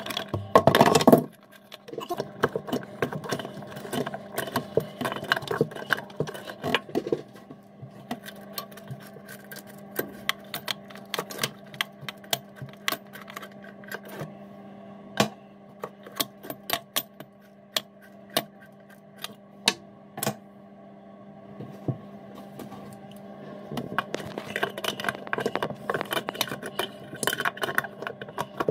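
Metal spanner clicking and scraping on the rusty fixing nut and hose connectors under a basin mixer tap as they are undone: many sharp metallic ticks, with a louder clatter about a second in. A steady low hum runs underneath.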